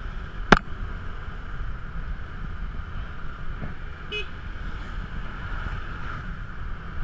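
Motor scooter on the move, heard from a camera mounted on the bike: a steady low rumble of engine and wind on the microphone. A single sharp knock about half a second in, and a very short beep a little after four seconds.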